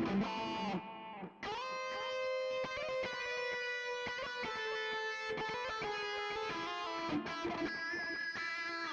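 Electric guitar played through a Valeton GP-5 multi-effects processor: a quick run of notes, a short break about a second in, then long held lead notes, one bent upward as it starts.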